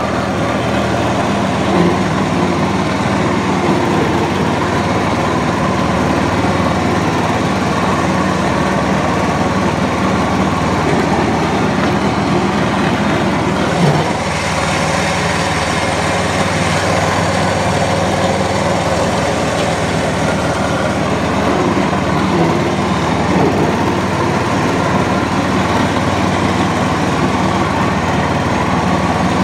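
Small engine of a ride-on garden tractor running steadily as the tractor is driven, with one brief knock about halfway through.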